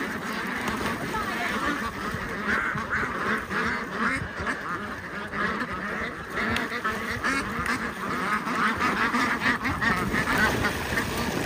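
A flock of domestic ducks quacking over and over, many voices at once, over rushing water, with splashing as they crowd in the current.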